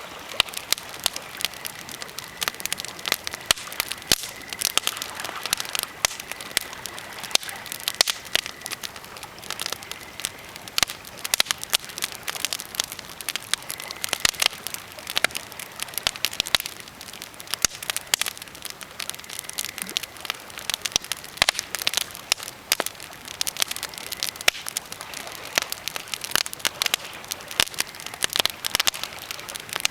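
Birch and pine campfire crackling: dense, irregular sharp snaps and pops, several every second, over a soft steady hiss.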